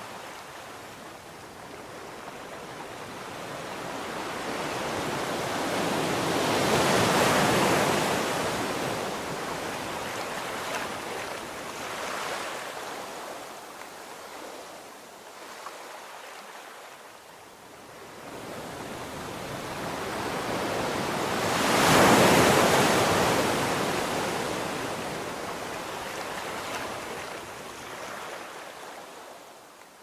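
Ocean surf breaking and washing up a sandy beach, rising and falling in slow swells. The loudest swells come about a quarter of the way in and again about three quarters through, and the surf fades near the end.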